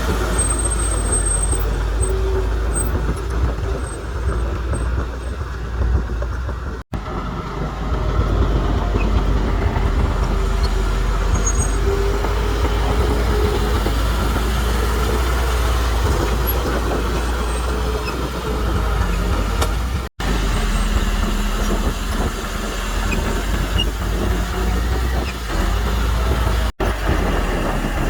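Diesel engines of heavy earthmoving machinery running steadily under load. The sound cuts out for an instant three times.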